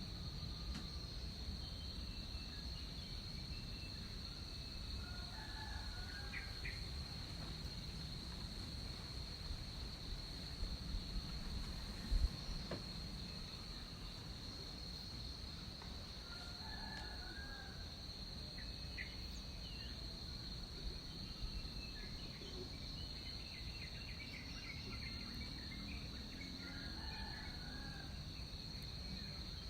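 Tropical rainforest ambience: a steady, high-pitched insect drone with scattered short bird chirps over a low rumble, and a single sharp knock about twelve seconds in.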